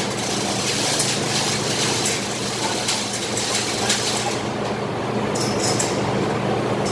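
Steady machinery noise: a constant low hum under a broad hiss, with a few faint knocks in the first few seconds.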